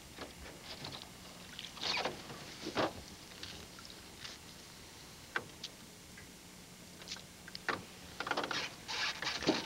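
Hands working at a muskrat trap in wet marsh grass: scattered rustles, light knocks and short splashy scrapes, with a few louder bursts about two seconds in and again near the end.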